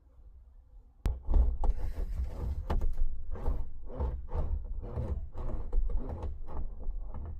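Repeated rumbling strokes and knocks on the van's sheet-metal roof, about two a second after a sharp click about a second in, typical of a hand roller pressing sound-deadening mat onto the panel.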